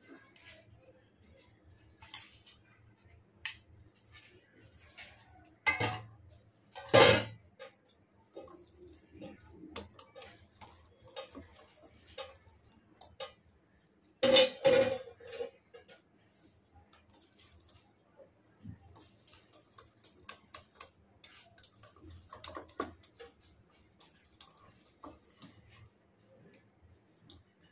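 Stainless steel wire whisk stirring a thick marinade paste in a glass bowl, the wires clinking and scraping against the glass. A few louder knocks come about six to seven seconds in and again around halfway.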